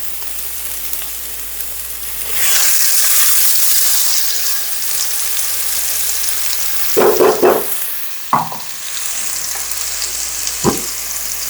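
Blended spice paste of garlic, ginger and soaked chilli sizzling in a hot pan of chicken fat, flaring up loudly about two seconds in and then frying steadily. A few short knocks and scrapes of stirring come later.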